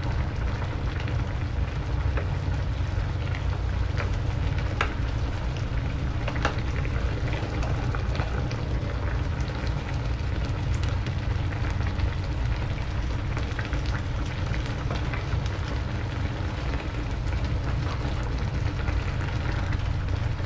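Grouper-head soup boiling hard in a metal pan: a steady bubbling crackle with many small pops over a constant low rumble.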